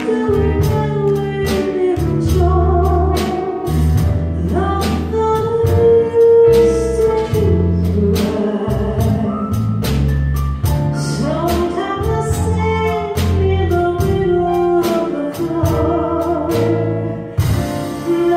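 Live band music with piano, bass and drums keeping a steady beat, under a sung melody with vibrato.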